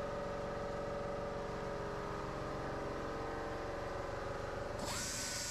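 A small motor running steadily with an even whine of several held tones over a low hum. About five seconds in, a tone glides up and holds while a hiss comes in.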